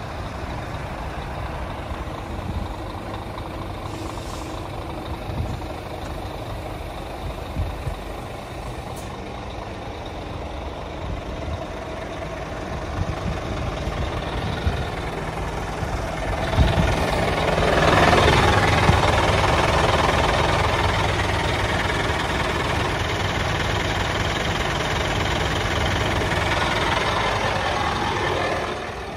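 Scania R440 truck's inline-six diesel engine idling steadily. It grows louder and fuller about two-thirds of the way in, heard close up under the cab, and drops off suddenly at the very end.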